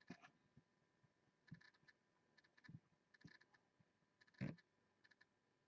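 Near silence broken by faint, scattered clicks and light taps, with one louder thump about four and a half seconds in.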